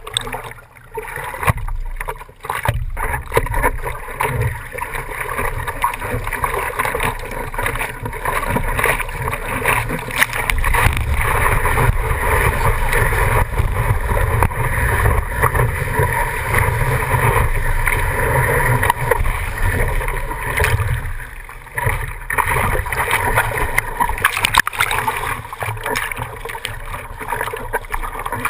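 Seawater rushing and splashing over a surfboard, picked up by a GoPro on the board's nose, with wind on the microphone. The rush grows louder about ten seconds in as the board is carried through whitewater and eases off around twenty seconds.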